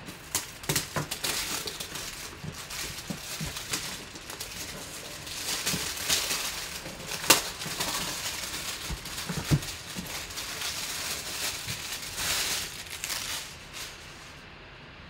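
Plastic shrink-wrap crinkling and tearing as it is peeled off a cardboard trading-card box, with irregular crackles and one sharp snap about seven seconds in.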